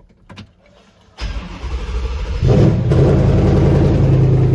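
Ford 5.0 Gen 3 Coyote V8 starting: the starter cranks about a second in, the engine catches with a rev a little over a second later, then settles into a steady idle.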